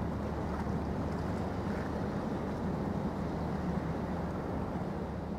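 Container ship passing on the river, its engine a steady low rumble.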